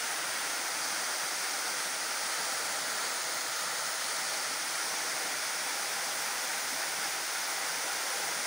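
Waterfall pouring down a tall rock face into a shallow pool: a steady, even rush of water.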